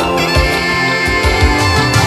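Background music with sustained layered tones over a steady low beat.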